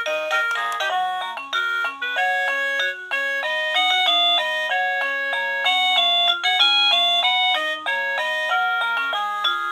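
Wireless doorbell receiver playing one of its built-in electronic melodies: a busy tune of short, stepped notes, several at once, over a bass line.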